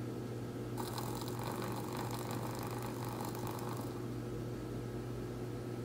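Reel mechanism of a miniature steel slot machine, set going by its lever, spinning with a rapid clicking whir that starts about a second in and stops after about three seconds.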